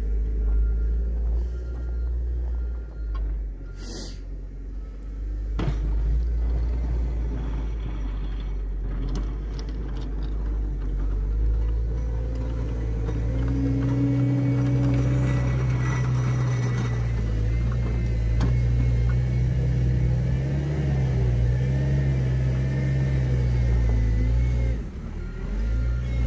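CAT 906 compact wheel loader's diesel engine running and working, a steady low rumble that grows louder and steadier in tone about halfway through.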